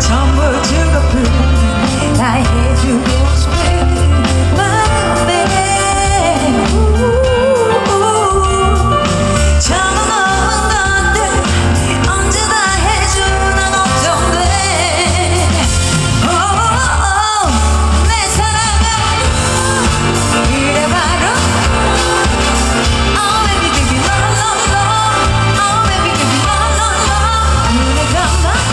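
A woman singing a pop song live into a handheld microphone over amplified pop accompaniment with a pulsing deep bass.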